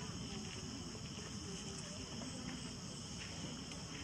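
Steady high-pitched chorus of insects, constant throughout, over a low background rumble, with a few faint clicks.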